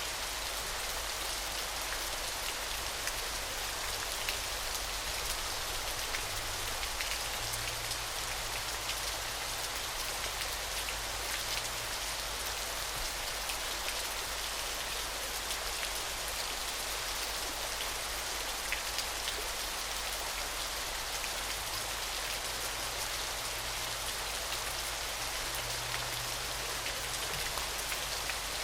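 Falling water splashing steadily: an even, unbroken hiss with fine scattered ticks throughout.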